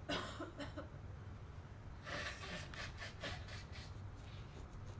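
A girl sneezing and coughing: one sharp, breathy burst right at the start, then a run of about five short bursts between two and three and a half seconds in.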